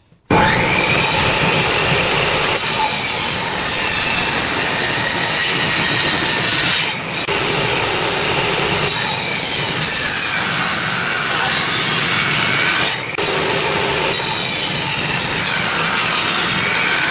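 Table saw ripping a hardwood board lengthwise into strips, the blade running steadily under load. The sound dips briefly twice, about seven and thirteen seconds in.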